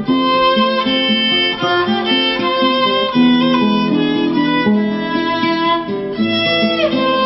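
Instrumental music led by violin over guitar, the notes changing every fraction of a second, with a violin glide sliding down near the end.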